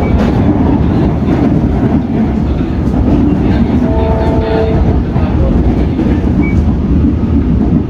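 Comeng electric suburban train running along the line, heard from inside the carriage: a steady rumble of wheels on rail with light clickety-clack. About four seconds in a brief steady tone sounds over it.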